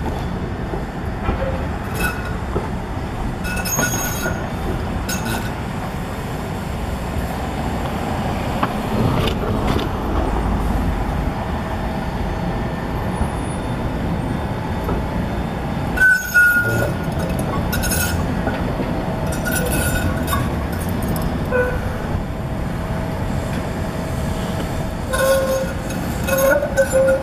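SEPTA Kawasaki light rail vehicle running slowly around curved street track, with a steady rumble and short, high-pitched squeals from the wheels on the curve now and then, more often in the second half.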